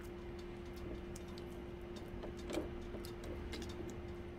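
Faint scattered clicks and soft handling noises as raw ground-beef meatloaf mix is pressed by hand into a pan, with a small soft bump about two and a half seconds in. A steady low hum runs underneath.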